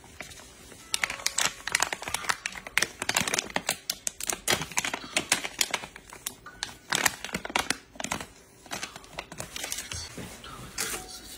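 Plastic packet crinkling and crackling in irregular bursts as its contents are squeezed out into a pan.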